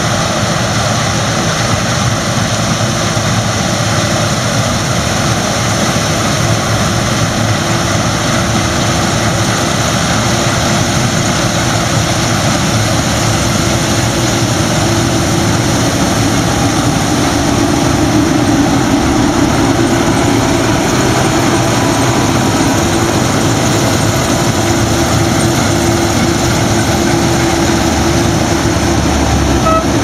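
Several Claas Lexion combine harvesters cutting wheat, a steady loud drone of engines and threshing. It grows a little louder in the second half as the nearest combine comes close.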